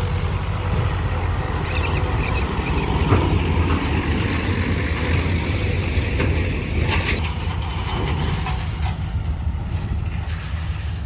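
Combine harvester's diesel engine and threshing gear running steadily while cutting wheat, with a couple of brief clatters.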